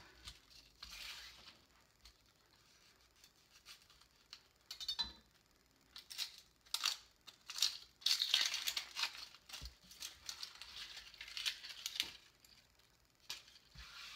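Dry, papery onion skin being peeled and torn off by hand, crackling in short irregular bursts that are busiest in the second half.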